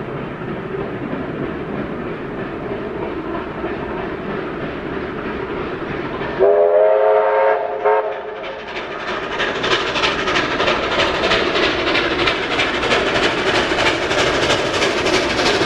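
Steam locomotive approaching: a low rumble, then its whistle sounds a steady chord for about a second and a half. Its exhaust chuffs then come in as a fast, even beat that grows louder as it draws near.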